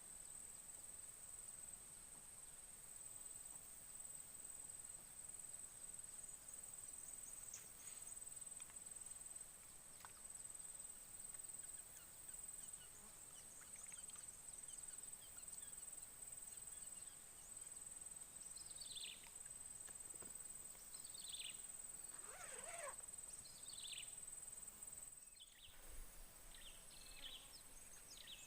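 Outdoor ambience: a steady high-pitched insect drone, with a bird giving a series of short falling calls in the second half and quick chirps near the end.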